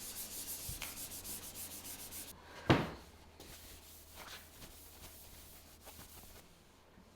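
Rubio Monocoat oil finish being rubbed into a hard maple board with a pad, in quick back-and-forth strokes. About three seconds in there is one sharp knock, and after it only faint handling sounds.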